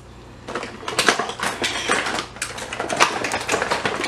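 Crinkling and crackling of a small plastic toy packet being handled and opened, a dense run of sharp crackles starting about half a second in.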